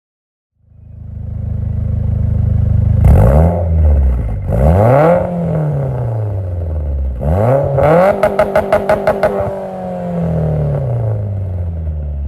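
Car engine being revved: it comes up from silence, then is blipped several times with sharp rises and falls in pitch. About eight seconds in there is a quick stuttering run of short pulses before the revs drop away.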